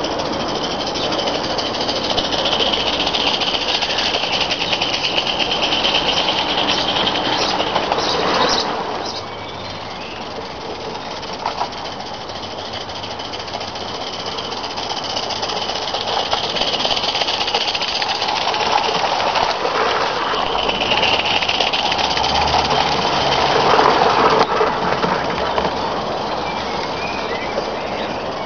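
Mamod SM32 live-steam garden-railway locomotive running at a steady speed with its train, exhaust beating and steam hissing. It grows louder and softer as it moves around the track, loudest near the end.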